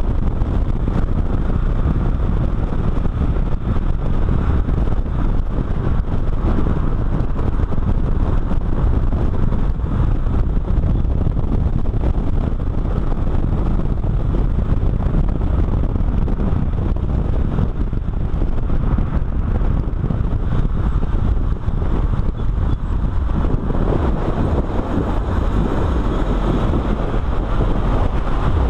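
Car driven at speed, heard from a camera mounted low on its side: a steady rush of wind buffeting the microphone over tyre and engine noise, with no clear engine note coming through.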